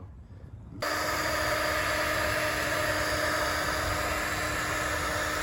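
Heat gun switched on about a second in and blowing steadily, a loud rush of air over a steady motor hum.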